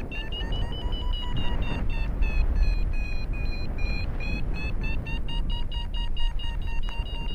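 Paragliding variometer beeping in quick short high beeps, about four a second, shifting slightly in pitch: the climb tone that signals rising air. Wind rumbles on the microphone underneath.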